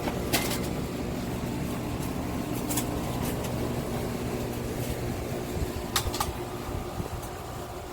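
Steady motor hum, with sharp clicks or knocks about a third of a second in, near three seconds, and twice close together around six seconds.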